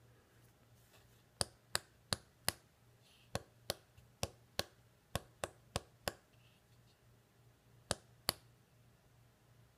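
Sharp, short clicks, about fourteen, in quick runs of two and four at roughly three a second with pauses between the runs.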